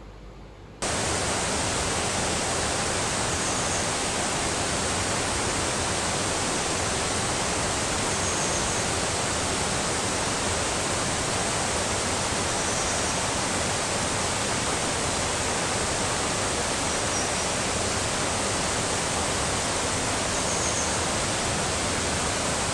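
River water rushing, a loud, steady, even roar that starts suddenly about a second in, with a few faint high chirps above it.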